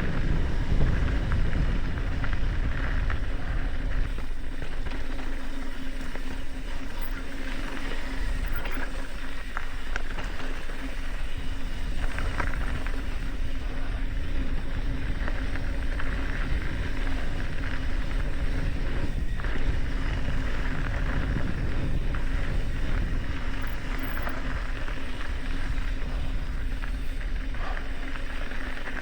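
Mountain bike descending a dirt singletrack at speed: wind rushing over the microphone, mixed with tyres rolling on the trail and the bike rattling, with a steady hum underneath.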